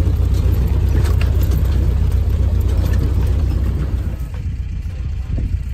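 1949 Willys Jeep driving over a rough desert track: a steady low engine and drivetrain rumble with scattered light rattles. It eases a little about four seconds in.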